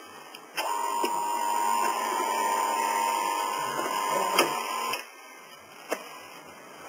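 A motor inside a Quick Mill Monza super-automatic espresso machine runs for about four seconds with a steady whine, starting and stopping abruptly, with clicks near its start and end; one more click follows about a second later.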